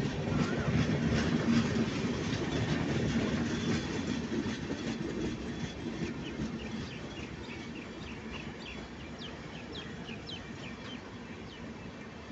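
Indian Railways express of LHB passenger coaches rolling past, wheels clattering over the rail joints with a low rumble, loudest in the first few seconds and easing off after that. Short high chirps come in over the second half.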